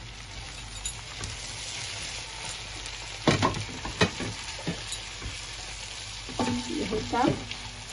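Onions, tomatoes and peppers frying in a nonstick pan with a steady sizzle, stirred with a silicone spatula. The spatula scrapes and knocks against the pan a few times about halfway through.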